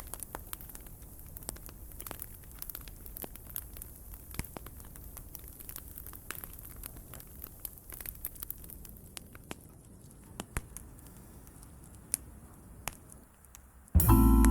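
Campfire crackling, with frequent small sharp pops. Near the end a jazz band of drums, vibraphone and bass starts playing loudly.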